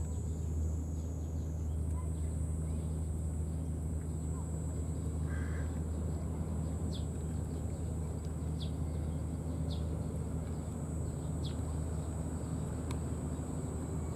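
A cat eating wet food from a plastic tray, its chewing faint under a steady low outdoor rumble, with a few faint short high chirps in the second half.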